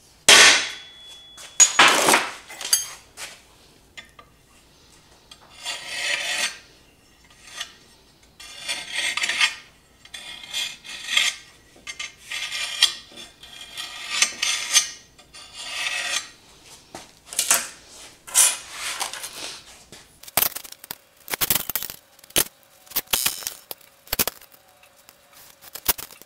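Two hammer blows on a center punch against steel tubing near the start, the first leaving a short metallic ring. Then a long series of scratching strokes as a scriber is drawn along a steel rule across the steel, marking out layout lines, with a few light metal clinks near the end as the rule is moved.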